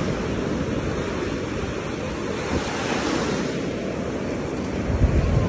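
Sea surf washing on a sandy beach, a steady hiss that swells about halfway through, with wind buffeting the phone's microphone in gusts that are strongest near the end.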